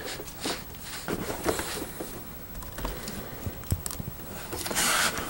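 Handling noise as a BenQ EW2775 monitor is turned around on its stand: scattered light clicks and knocks of hands on the plastic casing and stand, with a short swish near the end.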